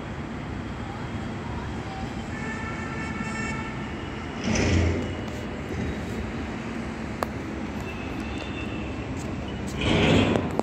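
Road traffic running steadily, with a horn sounding for about a second and a half around two seconds in, and two vehicles passing close, about four and a half and ten seconds in.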